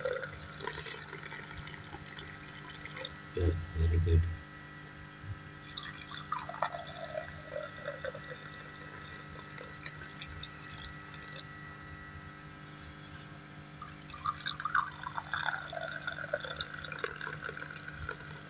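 Milky pink Kashmiri tea pouring from a jug into glass cups, filling them one after another. Two dull thumps about three and a half seconds in.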